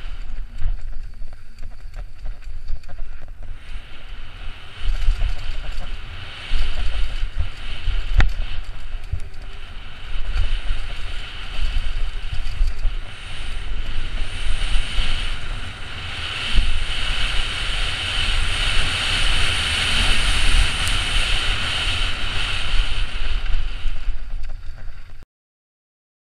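Onboard audio of a downhill mountain bike run at speed: wind buffeting the helmet-mounted microphone over a steady rush, with low thuds and rattles from the bike over rough dirt and one sharp knock about eight seconds in. The rush grows louder and brighter in the second half, then cuts off suddenly near the end.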